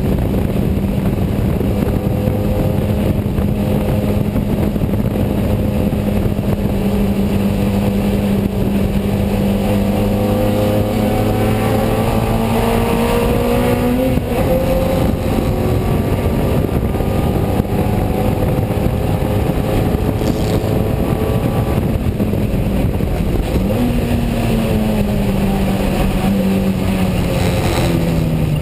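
Unipower GT's BMC A-series four-cylinder engine running hard on track, heard from inside the cockpit with road and wind noise. Its pitch climbs slowly and drops sharply about halfway through. Near the end the pitch falls away again.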